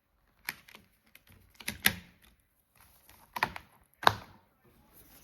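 Disc packaging being handled: a string of sharp plastic clicks and taps with light rustling between them, the loudest click about four seconds in.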